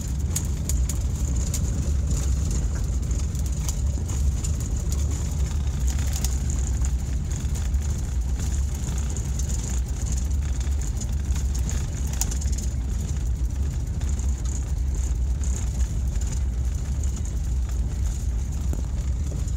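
A car driving slowly on a gravel road, heard from inside the cabin: a steady low rumble of engine and tyres, with gravel crackling and ticking under the tyres.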